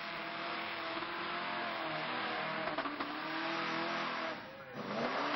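Super Pro mud bogger truck on tractor tires, its engine revving hard as it plows through the mud pit. The pitch wavers throughout, drops briefly about four seconds in, then rises sharply in a loud rev near the end.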